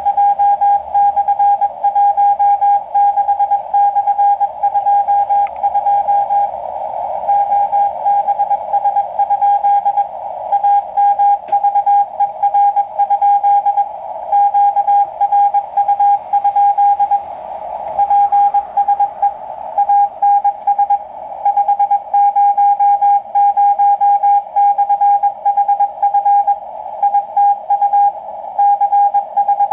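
Morse code (CW) from the Point Reyes maritime coast stations KPH, KFS and KSM, received on shortwave with an Icom IC-R8500 in CW mode: a steady mid-pitched beep keyed on and off in dots and dashes over a narrow band of static.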